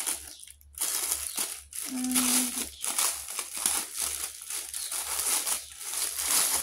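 Packaging crinkling and rustling in irregular crackles as a small carrying case for a Nintendo Switch is unwrapped by hand.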